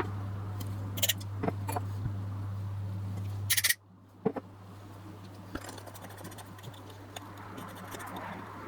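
Sharp clicks and light scraping of small metal lens parts being handled, over a steady low electrical hum; the hum and level drop abruptly a little under four seconds in, leaving fainter ticks.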